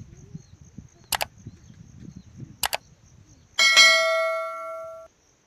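Two sharp double clicks, then a loud metallic bell-like strike that rings with several steady tones for about a second and a half before cutting off suddenly.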